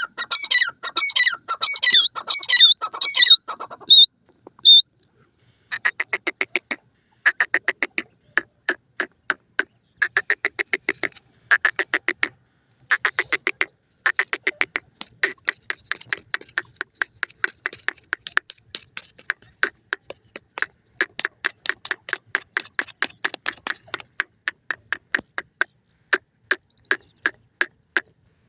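Grey francolins (teetar) calling. For the first few seconds there is a loud series of repeated calls that bend up and down in pitch. After a short pause come rapid runs of short clucking notes, several a second, in bursts about a second long with brief gaps between them.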